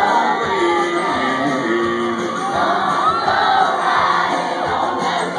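Live country band music from a concert crowd's vantage, with a large crowd shouting, whooping and singing along over it.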